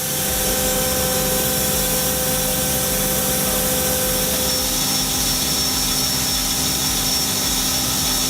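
Wood-Mizer industrial sawmill machinery running steadily, a constant machine hum and saw noise with several held tones.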